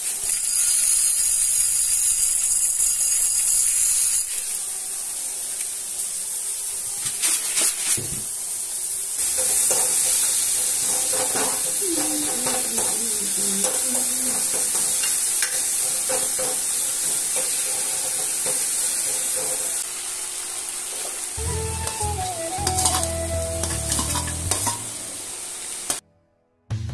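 Masala curry of potatoes and eggs sizzling in a kadai while a metal ladle stirs it, with scattered scraping clicks against the pan. The sound cuts off abruptly near the end.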